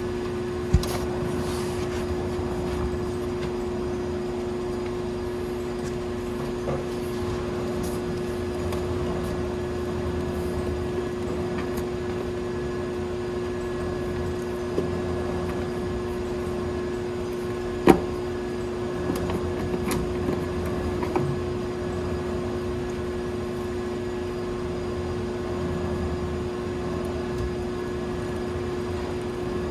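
A steady mechanical hum with a constant low tone, broken by a few light clicks and one sharp knock about eighteen seconds in.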